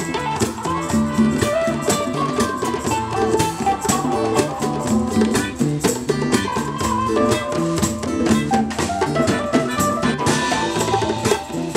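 A live band playing an upbeat instrumental groove: strummed acoustic guitar and electric guitar over a drum kit and hand drums, with djembe and conga being played.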